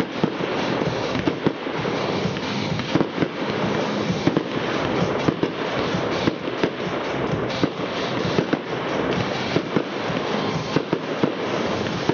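Fireworks display going off: a continuous, dense crackle of bursting shells and stars with frequent sharp bangs.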